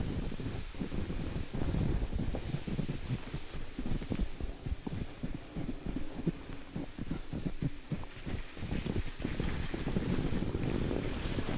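Wind buffeting the microphone: a low, uneven rumble in quick gusts.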